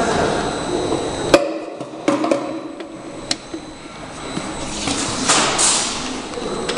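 Automatic round-bottle labeling machine running: a few sharp clicks and knocks at uneven intervals over a steady machine hum, and a short hiss about five seconds in.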